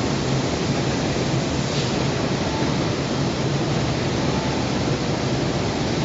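Steady rushing noise of a robotic paint spraying booth, with a low hum underneath and a faint brief hiss about two seconds in.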